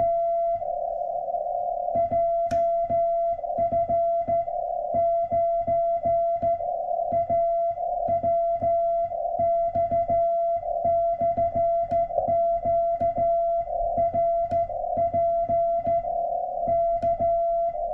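Morse code sent with a straight key on a homemade 3 W CW transceiver: a keyed tone in dots and dashes with a sharp click on each element. Between the sent groups the receiver's band hiss comes back.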